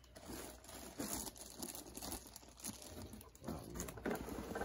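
Cardboard box and plastic packaging rustling as they are handled, with irregular crackles.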